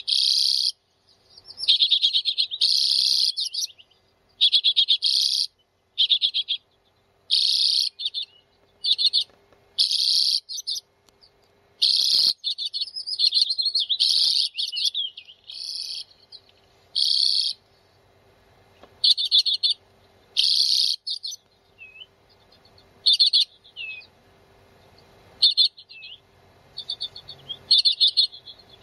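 Common redpolls calling: a run of short, dry chattering trills, about one a second, thinning to shorter, sparser notes in the second half.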